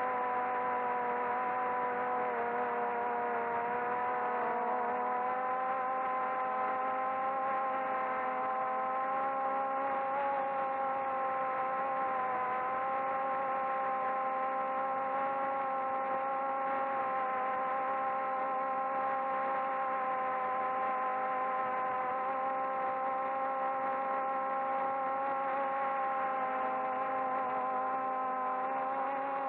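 Electric motors and propellers of a SKY-HERO 'Little' multirotor drone, heard through its onboard camera: a steady whine of several tones, which wavers briefly in pitch about four seconds in.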